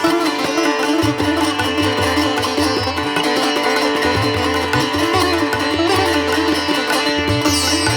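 Instrumental background music: a wavering melody over a steady drone, with a low beat underneath.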